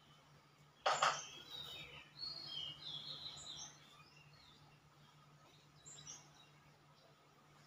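Small birds chirping, in runs from about one to four seconds in and again briefly near six seconds, opened by a short, louder harsh sound about a second in. A low steady hum lies underneath.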